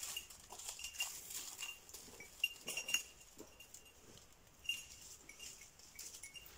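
A small bell on a hunting dog's collar tinkling faintly and irregularly as a Braque du Bourbonnais works slowly through the undergrowth. There is a cluster of clearer rings a little before halfway and another single ring near the end.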